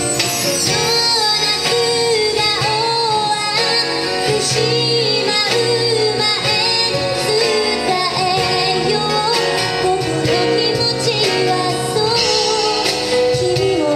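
A woman singing a ballad live, backed by a band of keyboard, acoustic guitar, bass and percussion.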